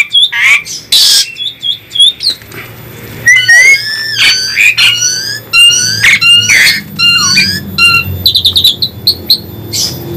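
Asian pied starlings (jalak suren) singing loudly: a fast, varied run of clear gliding whistles and chirps mixed with harsh rasping notes, with a quick rattling series of notes near the end.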